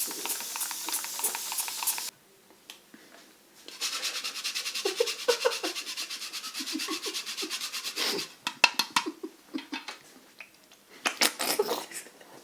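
Fast, rhythmic hand-scrubbing strokes on a customer's head during an ASMR barber's facial and hair wash, in two long runs, followed by a few sharp smacks near the end.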